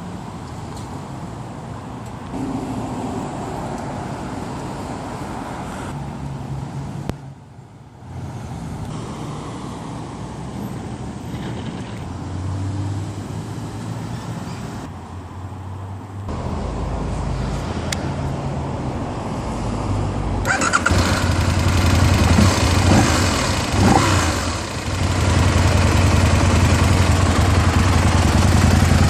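2009 Aprilia Tuono 1000's V-twin engine starting about twenty seconds in and running at a steady, loud idle. Before it starts there is only quieter, uneven background noise.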